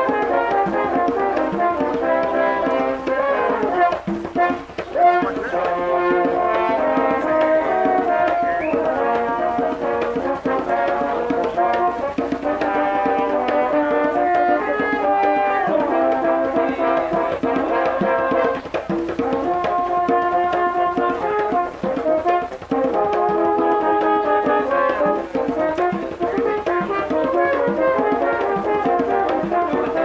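Live French horn quartet playing a Puerto Rican tune in close harmony, with held chords and moving melody lines. A bomba barrel drum keeps the beat underneath.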